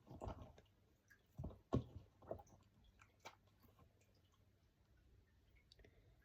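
Faint handling of fidget toys: a few soft clicks and knocks in the first three seconds or so as pieces are picked up and sorted, then near silence.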